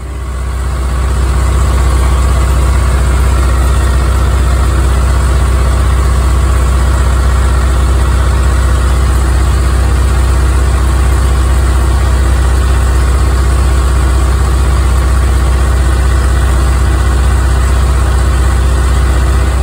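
Hürlimann 361 tractor's diesel engine running steadily at about 2000 rpm while cruising at an easy 25 km/h, heard loud from the driver's seat.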